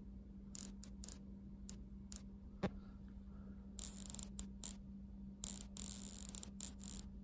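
Static electricity discharging in small sharp snaps from a charged fingertip to the steel ball of a bench-vise handle: scattered single clicks, one fuller snap about a third of the way in, and quick crackling clusters in the second half, over a steady low hum.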